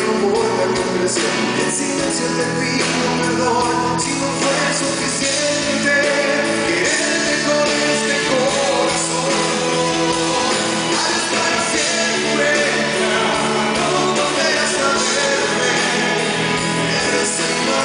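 Live band music with a singing voice, played steadily and loudly throughout.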